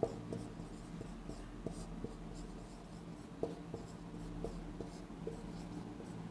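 Marker pen writing on a whiteboard: a string of light, irregular taps and scratches from the tip as words are written.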